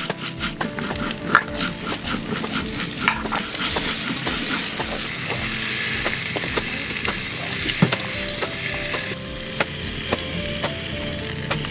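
Grinding stone rubbed back and forth over spice seeds on a flat stone grinding slab (sil-batta): quick scraping strokes, about four a second, for the first few seconds, then a steadier rasping grind that eases near the end. Background music plays underneath.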